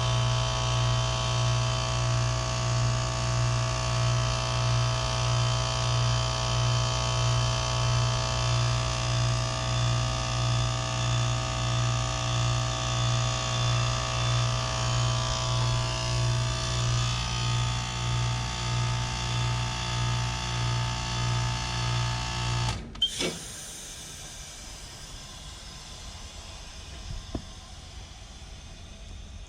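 2012 Lennox Merit heat pump outdoor unit running in its defrost cycle: a loud, steady mechanical hum with a low throb that pulses about twice a second. About three-quarters of the way through it cuts off abruptly with a brief whoosh, leaving only faint background noise.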